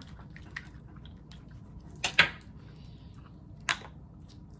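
Seafood shells being handled and cracked: a few sharp clicks and cracks, the loudest about two seconds in and another near four seconds.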